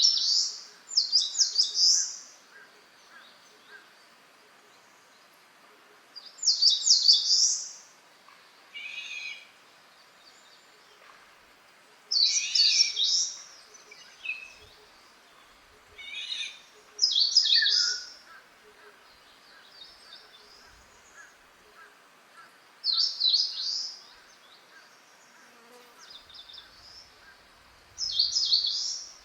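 Wild songbird singing short, loud, high-pitched phrases about every five seconds, each phrase lasting a second or two. Softer, lower chirps from other birds come in between.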